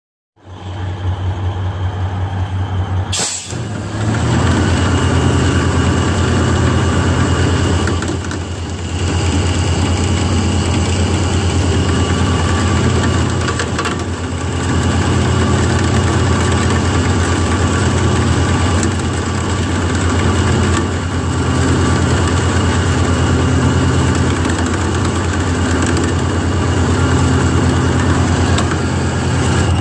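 M816 wrecker's six-cylinder diesel engine running steadily while the rear drag winch reels 3/4-inch steel cable onto its drum through the level wind. A sharp click comes about three seconds in, and just after it the sound gets louder and stays at that level.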